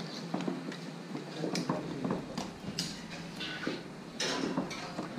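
Irregular clicks and knocks of kitchen utensils being handled during cooking, with a short scraping rustle about four seconds in.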